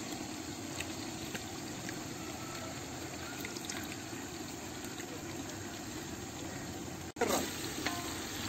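Onion, green chilli and ginger-garlic masala sizzling steadily in a large aluminium pot while packet curd is squeezed into it. The sound gets louder near the end.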